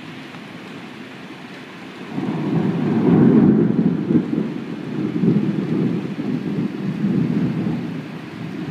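Heavy rain hissing steadily; about two seconds in, a long roll of thunder begins and keeps rumbling, swelling and fading in strength.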